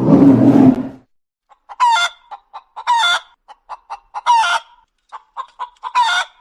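Chickens clucking and cackling: four short pitched calls with quick clucks between them. It opens with a loud, low, noisy sound that stops about a second in.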